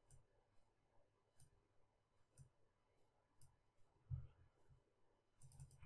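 Faint clicks of a computer mouse as brush strokes are drawn: single clicks about a second apart, a soft low thud about four seconds in, and a quick run of clicks near the end.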